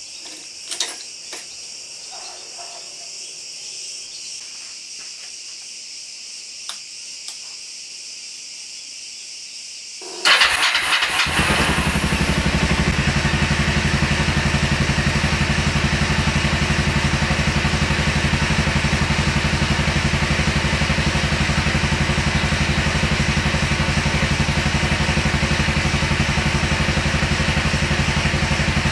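A few light clicks from the motorcycle's ignition key, then about ten seconds in the electric starter cranks for about a second and the engine catches and settles into a steady idle, starting on its newly fitted battery.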